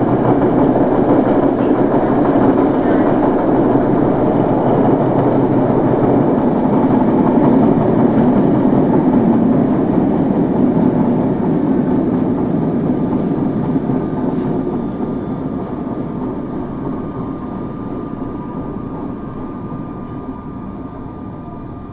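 Running noise inside a Tokyo Metro 01 series subway car: a loud, steady rumble of wheels on rail that fades steadily over the second half as the train slows, with a faint steady whine coming in. The recordist puts the car's abnormal running noise down to flat spots on its wheels.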